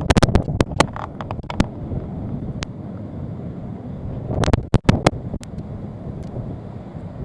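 Wind buffeting the microphone: a steady low rumble, with clusters of sharp crackles in the first second or so and again about four to five seconds in.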